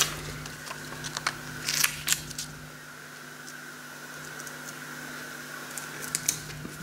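A sticker being handled and placed on a door by hand. There are a few light clicks and crinkles in the first couple of seconds, then quiet handling over a steady faint hum.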